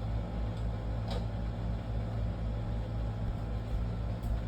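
Steady low mechanical hum, with a faint click about a second in and another near the end.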